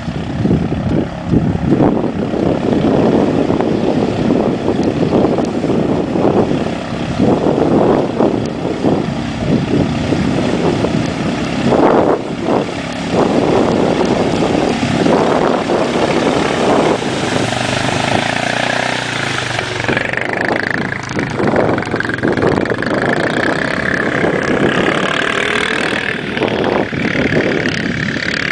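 ATV engines running loudly, with rough, gusty noise through the first part. From about two-thirds of the way in, an engine note rises and falls as the quads rev.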